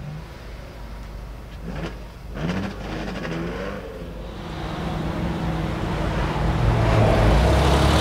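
A car engine rising and falling in pitch as its revs are briefly raised, twice, then a car's engine growing steadily louder as it comes closer, loudest near the end.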